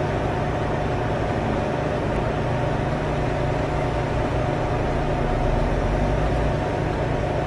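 Steady hum of a car engine idling, with an even background noise and no sharp events.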